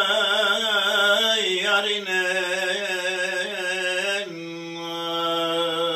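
A man singing an unaccompanied uzun hava (Turkish free-rhythm folk song). He draws out one long vowel with quivering ornaments, then settles on a steady held note about four seconds in.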